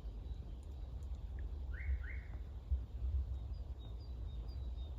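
A bird gives two short rising chirps about two seconds in, with faint, higher repeated chirps at the start and again near the end, over a steady low rumble.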